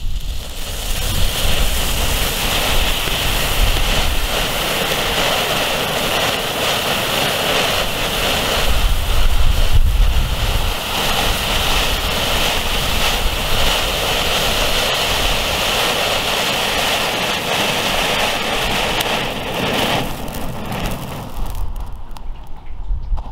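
Two Funke 1000 Smaragde mini firework fountains hissing steadily as they spray sparks, weakening about twenty seconds in as they burn out.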